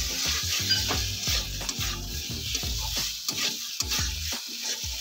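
A metal spatula scrapes and stirs potato pieces through a masala paste in a kadai, with repeated scrapes against the pan over a steady sizzle of the hot oil. This is the bhuna stage: the spice paste and potatoes are being fried down in oil.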